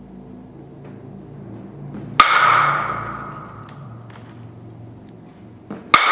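A bat striking a softball twice, about four seconds apart. Each hit is a sharp crack that rings on and fades over about a second.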